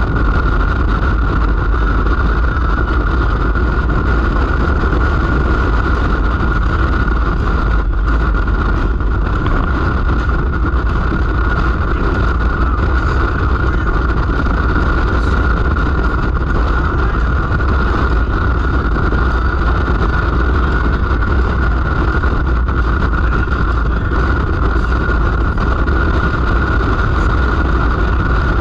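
Motor vehicle running steadily on the road: a constant low drone with a steady high whine above it, holding the same speed throughout.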